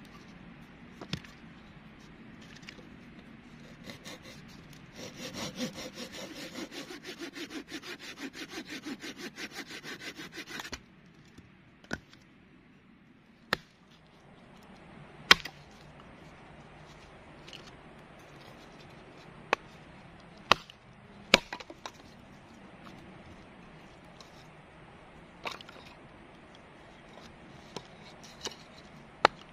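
Folding hand saw cutting through a small log, about three strokes a second for some five seconds, then stopping suddenly. Afterwards a series of single sharp wooden knocks a few seconds apart, as logs and the hatchet are knocked against wood.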